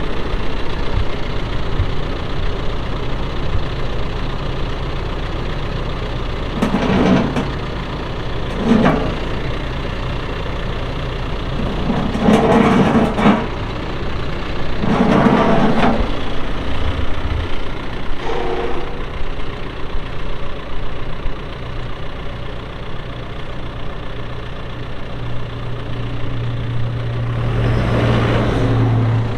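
John Deere 410L backhoe loader's diesel engine running steadily while its hydraulics are worked, with several louder surges in the first twenty seconds and a deeper steady hum building near the end.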